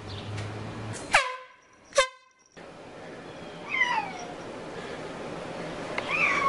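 Two short horn-like honks, each swooping sharply down to a held note, about one and two seconds in. Then a cat meows twice, a falling meow near the middle and another near the end.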